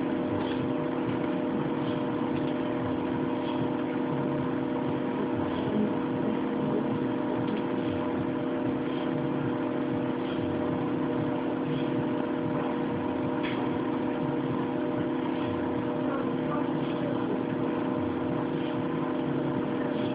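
A steady machine hum with several held tones, unchanging throughout, with faint clicks every second or two.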